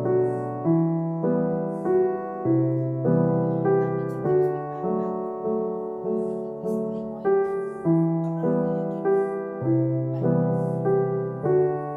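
Background piano music, with notes struck at an even, unhurried pace and each one fading after it sounds.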